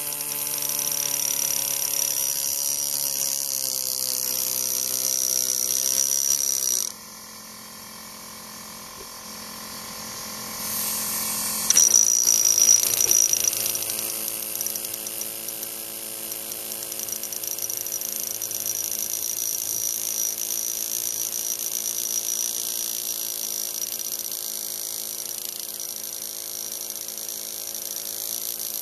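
A handheld power tool buzzing steadily, its pitch wavering slightly. It stops about seven seconds in and starts again about five seconds later. Under it runs a steady high whine of insects.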